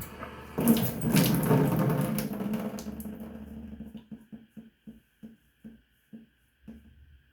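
Water running from a tap into a sink for a couple of seconds, then tailing off, followed by a run of short soft knocks, about three a second.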